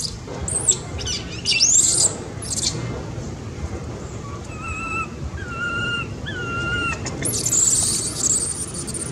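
Baby long-tailed macaque screaming: a run of short, very high-pitched shrieks over the first couple of seconds and one longer high scream near the end. In the gap between them come three short, lower whistled calls.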